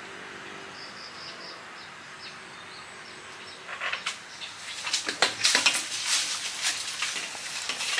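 A run of clanks, knocks and scrapes, starting about four seconds in, as a long well pipe is worked down into the ground and catches on tree branches.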